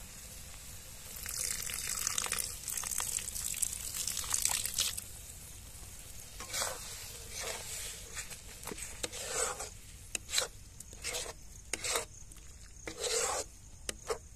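A curry being stirred in a cooking pan. A few seconds of steady scraping come first, then a string of separate short strokes.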